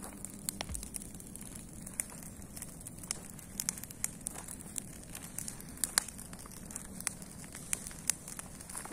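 Bonfire of cut garden branches crackling, with irregular sharp pops and snaps.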